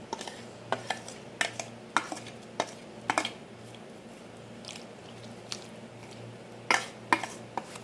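Kitchen utensils clicking and tapping: a spoon knocking against a bowl and spice containers while spice powder is added, about a dozen short, scattered taps, the loudest near the end.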